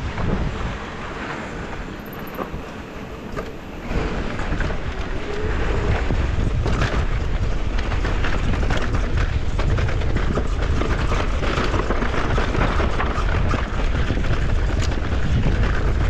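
Wind buffeting the microphone of a mountain bike's ride camera, over the clatter and rattle of the bike on a rough dirt trail. The wind rumble grows louder about four seconds in and stays up.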